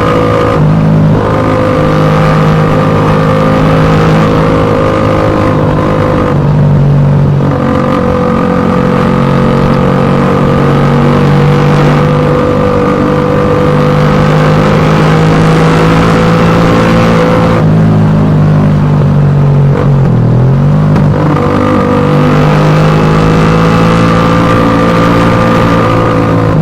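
Suzuki Satria FU 150's single-cylinder four-stroke engine running through its exhaust at fairly steady high revs, with a few brief drops and recoveries in pitch.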